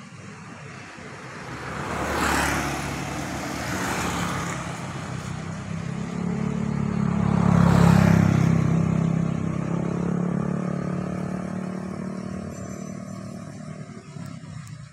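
Motorcycles passing along the road, one about two seconds in and a louder, closer one around eight seconds in, each engine rising and then fading away.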